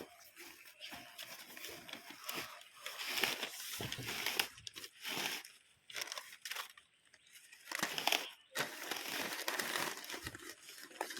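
Irregular rustling and crinkling as potted saplings in plastic bags are handled and packed into a parcel.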